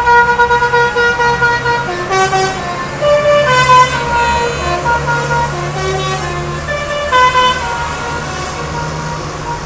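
A bus's multi-tone telolet horn: one long held note, then from about two seconds in a tune of short notes stepping up and down in pitch, ending about 7.5 seconds in. The bus's diesel engine runs underneath throughout.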